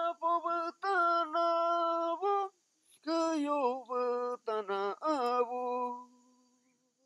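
A man's voice singing an icaro, a shamanic healing song, as a wordless melody of held notes with small bends in pitch. It breaks off briefly about two and a half seconds in, resumes, and ends on a long low note that fades out near the end.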